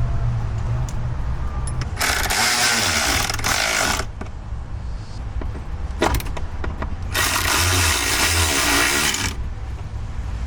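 A power driver runs down two T15 Torx bolts, two bursts of about two seconds each, with a short click between them.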